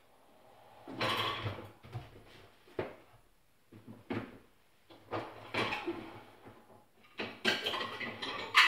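A dishwasher being unloaded: the lower rack rolling in and out on its runners and dishes clinking as they are lifted out and set down, in several separate short bursts with the loudest near the end.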